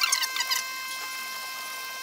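A few quick high-pitched squeaks in the first half-second as a cloth soaked in stain is rubbed by a gloved hand over a concrete countertop. A faint steady electrical whine follows.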